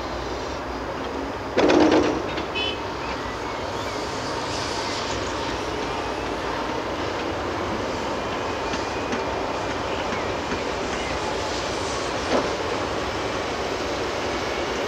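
Heavy diesel engines of a Caterpillar 330F excavator and a Claas Axion 810 tractor running steadily. About two seconds in, a bucketful of earth drops into the steel dump trailer with a loud, brief crash, the loudest thing heard. The tractor then pulls the loaded trailer away.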